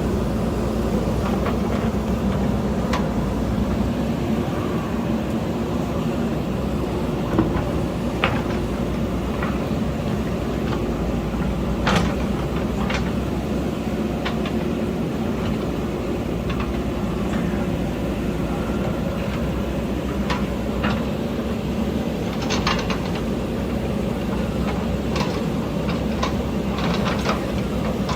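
JCB backhoe loader's diesel engine running steadily under work, with scattered metallic clanks and knocks from the working machine; one sharper knock comes about halfway through.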